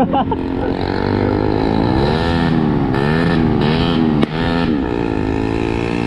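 Bajaj Pulsar NS200's single-cylinder engine running through a homemade silencer made from a cut-down thermos. The revs rise about two seconds in and go up and down for a couple of seconds, with one sharp crack just past four seconds.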